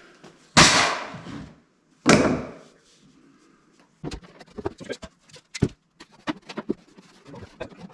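Two heavy thuds about a second and a half apart, each trailing off over about a second, then a run of lighter knocks and taps.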